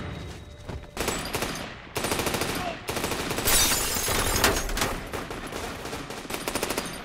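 Film gunfight sound: several bursts of rapid automatic gunfire, the longest running almost without a break from about three seconds in.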